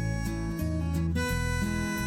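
Background music with plucked-string melody over a steady bass line.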